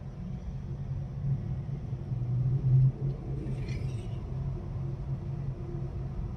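A marble rolling along plastic marble-run track: a steady low rumble that swells to its loudest just before the middle, followed by a brief higher rattle.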